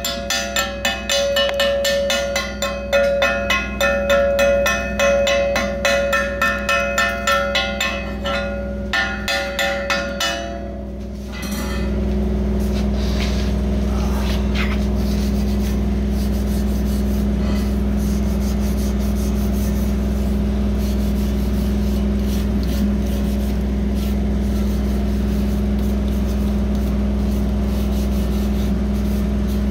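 Chipping hammer knocking slag off a freshly welded steel patch plate, about two or three ringing strikes a second, stopping about eleven seconds in. From then on a steady low machine drone carries on.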